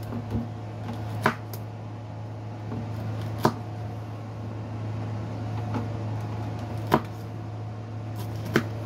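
Chef's knife chopping green bell pepper on a wooden cutting board: sharp knocks of the blade hitting the board, four louder ones and a few fainter ones at uneven gaps of one to three seconds. A steady low hum runs underneath.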